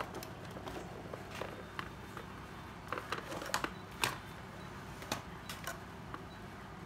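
Light clicks and knocks of hard plastic cordless-drill bodies and parts being handled and set down, scattered, with a quick cluster in the middle and the sharpest knock about four seconds in.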